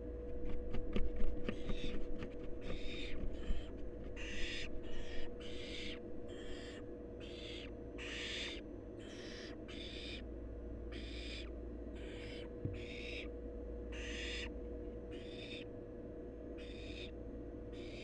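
Barn owls in a nest box making rasping hiss calls, the food-begging 'snore' of the nestlings, repeated about once a second. In the first few seconds a nestling's wing-flapping adds sharp rustles and knocks on the wood-chip floor.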